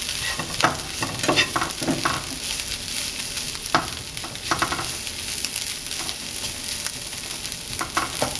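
Diced onions sizzling in a nonstick frying pan, with a steady high hiss, while a spatula stirs and scrapes them around in irregular strokes. The onions are nearly done, soft and translucent.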